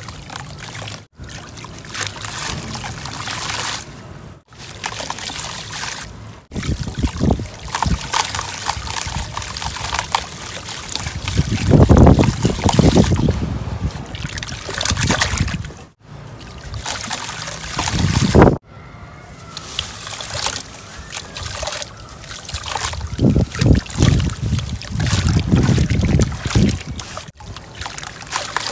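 Soft sand-and-dirt chunks being squeezed and crumbled by hand in a basin of water: water sloshing and trickling with a gritty crumbling. It swells louder twice and breaks off briefly several times.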